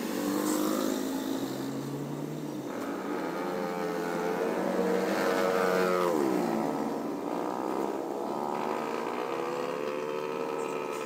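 A motor running with a steady pitched note that falls sharply about six seconds in, then climbs back and holds.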